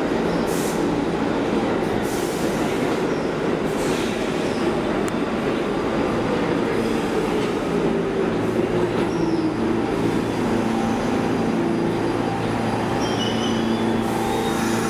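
R46 New York City subway train pulling into an underground station and slowing to a stop: a steady rumble of wheels on rail, with a whine that falls in pitch as the train slows and brief high squeals near the end as it comes to a halt.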